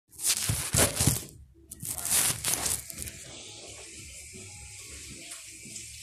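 Two bursts of rustling noise in the first three seconds, like a phone being handled against the microphone, then a steady faint hiss.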